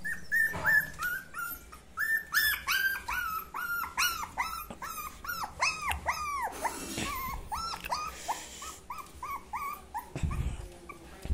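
Young puppies whining in a fast, steady run of short high-pitched cries, about three a second, each rising and then falling in pitch. A low thump comes near the end.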